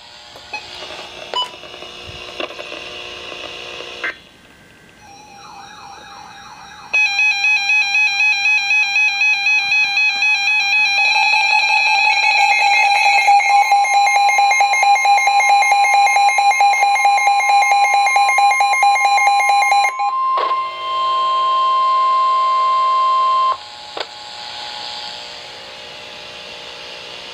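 Emergency alert tones for a flash flood warning. A loud, rapidly pulsing electronic alarm sounds for about thirteen seconds, with a steady tone joining it partway through. It then gives way to a steady single tone of a few seconds. Fainter, noisy sound comes before and after.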